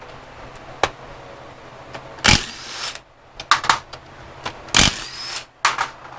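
Cordless power driver spinning bolts out of the engine's tensioner bracket in short bursts, two strong ones about two and a half and five seconds in, with shorter bursts and clicks between, over a steady low hum.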